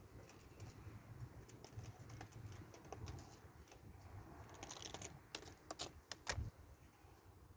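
Faint, irregular light clicks and taps over a low hum, with a few sharper clicks about five to six seconds in.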